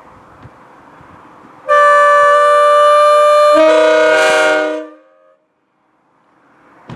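Multi-chime locomotive air horn blown on compressed air, sounding a chord of several notes for about three seconds, starting near two seconds in. The chord shifts about midway as a lower note comes in, then it dies away. With a regular number 4 bell fitted instead of a 4A, it sounds the same Canadian tune.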